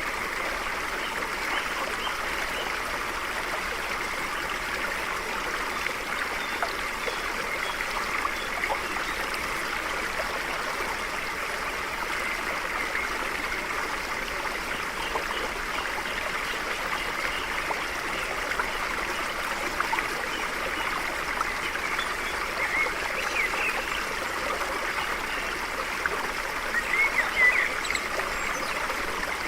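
A small stream flowing and trickling steadily over stones. Near the end come a few short bird chirps.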